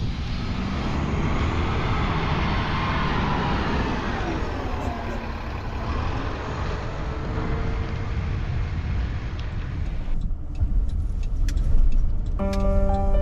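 Articulated city bus pulling away, its engine and drivetrain running with a whine that glides up and down in pitch. After about ten seconds the bus fades to a low rumble with a few clicks, and music starts near the end.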